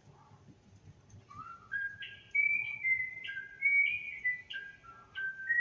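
A person whistling a tune: a string of held notes that slide from one to the next, starting about a second in and getting louder.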